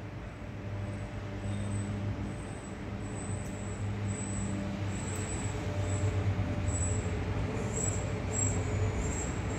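Street traffic noise with a motor vehicle engine running, a steady low hum that grows louder about halfway through.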